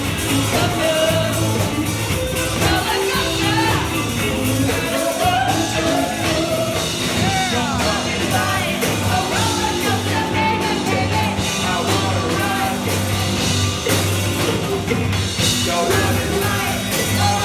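Live rock band playing a song with a singer over a pulsing bass line.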